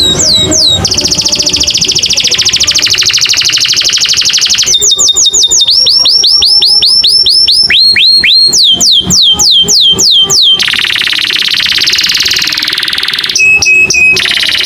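American canary singing a varied song: runs of repeated down-slurred whistled notes, about five a second, alternating with long, very fast rattling trills, and a short steady whistled note near the end.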